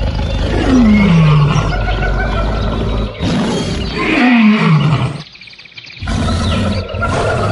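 A big cat roaring twice, each roar falling in pitch, the second about three seconds after the first, over a steady low rumble.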